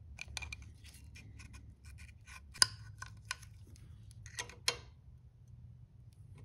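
Feeler gauge sliding in and out of the valve clearance gap between a 1964 Honda 50 Super Cub's rocker adjusting screw and valve stem: light metal-on-metal scrapes and ticks, with a sharper click about two and a half seconds in and another near five seconds. The gauge is being checked for a slight drag while the tappet gap is set.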